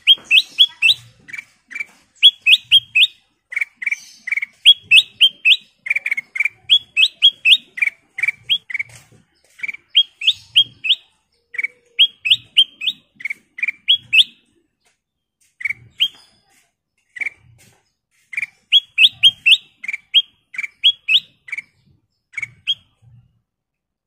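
Black-crested bulbul (kutilang emas) singing in quick runs of short, clear whistled notes, high rising ones alternating with lower ones. The song thins to scattered notes about two-thirds through, then comes back in a brief run near the end.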